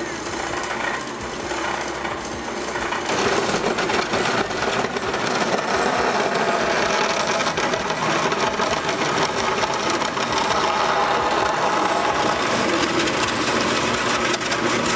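Industrial horizontal bandsaw running, its blade cutting through a 4-inch PVC pipe; the noise gets louder about three seconds in and then stays steady.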